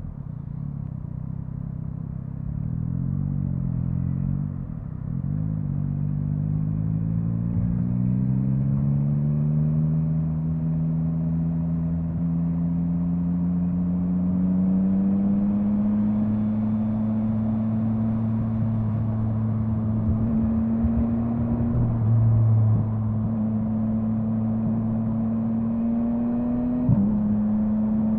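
Yamaha MT-09's inline three-cylinder engine running under way: its note climbs slowly and steadily through the first half, then holds at a steady pitch. Near the end there is a sudden brief break in the note.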